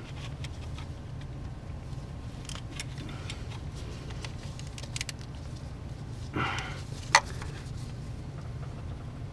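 Wrench clicking and tapping on the injector line nuts of a 6.5 turbo diesel as the bled injector lines are tightened back down: a few sharp metallic clicks, the loudest a little past seven seconds, with a short rustle just before it. Under it runs a steady low hum.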